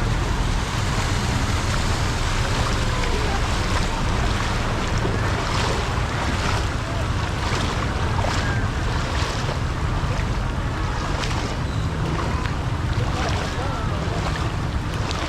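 Steady rush of floodwater from a river that has burst its banks, with wind buffeting the microphone.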